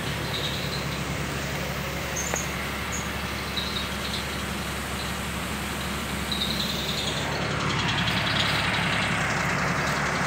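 Tractor-driven spray machine running steadily, its engine and pump giving a low, even drone while the hose feeds a high-pressure spray gun. A rushing hiss grows louder over the last two to three seconds.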